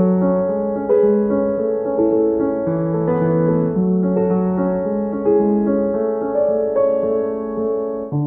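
Background piano music, with chords and single notes struck about once a second and left to ring.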